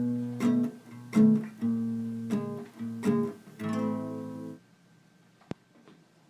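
Intro music: strummed acoustic guitar chords, which stop suddenly about four and a half seconds in, leaving near quiet with a single faint click.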